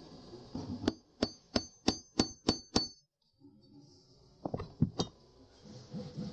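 Light metal-on-metal taps, seven evenly spaced strikes at about three a second, each with a short high ring. A few more knocks follow about four and a half seconds in.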